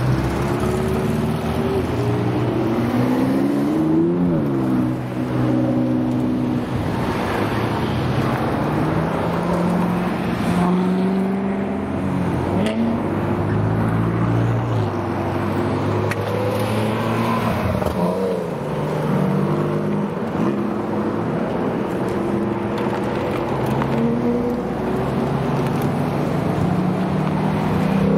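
A line of sports cars driving past one after another, their engine notes rising and falling as each car approaches and passes, with bursts of revving.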